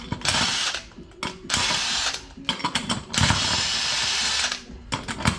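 Cordless impact wrench (rattle gun) undoing 19 mm wheel nuts on a truck's front hub, running in three bursts, the last and longest about three seconds in, with clicks and clatter between the bursts.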